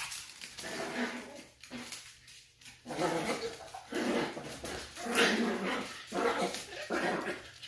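Small dog growling in repeated bursts as she bites and shakes a plush toy, agitated and taking it out on the toy.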